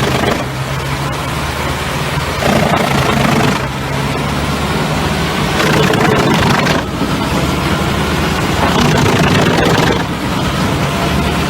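Heizohack HM 8-400 drum wood chipper running at work. Its engine drones steadily underneath, while louder spells of chipping noise come and go every few seconds as logs are fed into the drum.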